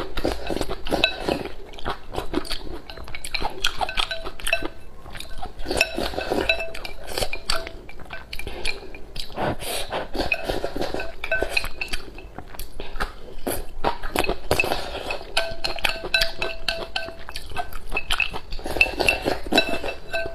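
Wooden chopsticks repeatedly clicking and scraping against a porcelain bowl as porridge is shoveled from the bowl held to the mouth, some taps leaving a short ring from the bowl.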